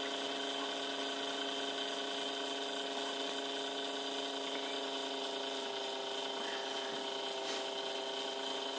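Small slow-speed DC gear motor running steadily, driving a gear train: an even whir with several steady held tones.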